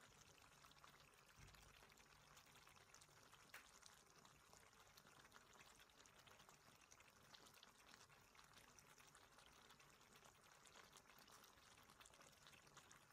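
Faint simmering of pork pieces in teriyaki sauce in a wok: a soft, even bubbling crackle, with one sharp click about three and a half seconds in.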